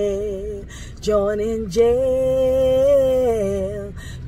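A woman singing unaccompanied, with a short break about a second in and then one long held note.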